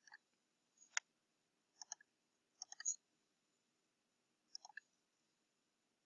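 Computer mouse clicking: faint, sharp clicks at irregular moments, some single and some in quick runs of two to four, as points are picked with a drawing tool.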